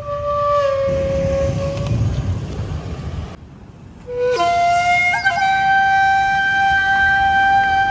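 Background music led by a flute-like instrument holding long, steady notes. The music drops away briefly about three and a half seconds in, then a new note comes in, steps up to a higher pitch and is held.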